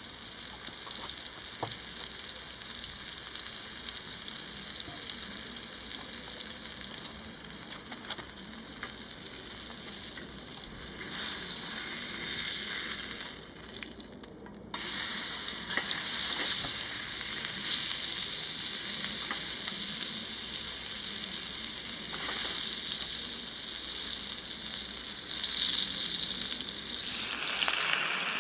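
Food sizzling and crackling in a pan over wood-pellet embers, a steady hissing fry that jumps suddenly louder about halfway through.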